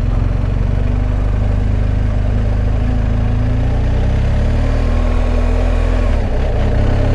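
BMW R1250 GS Adventure's boxer-twin engine pulling away at low speed, its pitch rising from about four seconds in, with a brief dip near six seconds, over a steady hiss.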